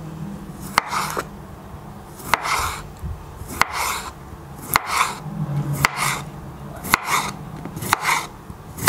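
A white-bladed kitchen knife slicing a crunchy pickled cucumber on a wooden cutting board, one cut about every second: each stroke gives a crisp crunch and a sharp knock of the blade on the board, about eight cuts in all.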